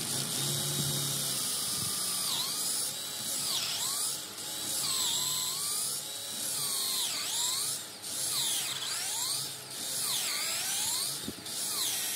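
Cordless drill boring through laminated wood with a long twist bit, the motor running under load with a few brief dips.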